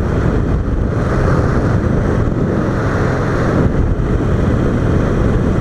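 Motorcycle riding along at speed: a Harley-Davidson Sportster Forty-Eight's V-twin running steadily under heavy wind rush on the microphone.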